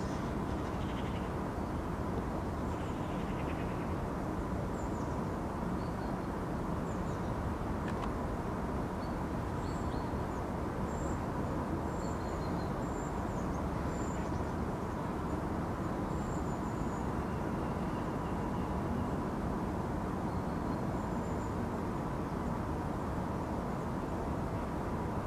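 Outdoor park ambience: a steady low rush of background noise, with faint short high bird chirps scattered through it.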